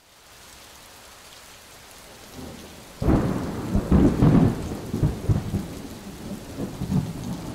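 Heavy rain falling as a steady hiss. About three seconds in, thunder breaks in suddenly and rumbles on unevenly.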